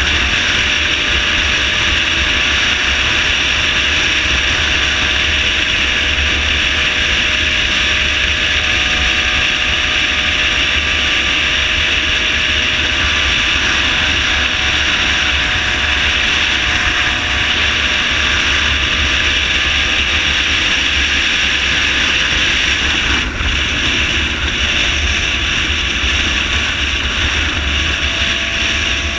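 Motorcycle at highway speed: steady, loud wind rush buffeting the camera microphone, with a faint steady engine note underneath.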